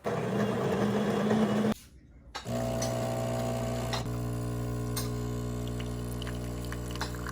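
A brief noisy whir, then after a short pause a steady machine hum that runs on evenly, with a few faint clicks.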